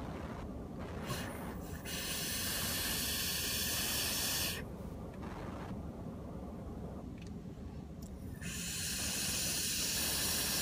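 Two long hissing draws on a vape's single-coil rebuildable atomizer with a parallel kanthal build: air rushing through the atomizer over the fired coil, each about three seconds long. The first starts about two seconds in and the second near the end.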